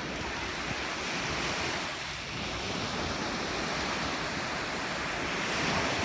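Small ocean waves breaking and washing up the shore, a steady rush of surf, with wind buffeting the microphone. The surf swells a little louder near the end as a wave breaks close by.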